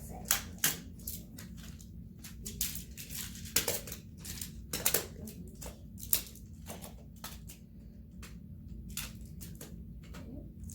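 Plastic magnetic building tiles clicking and clacking together as they are handled and snapped into place, in irregular sharp clicks.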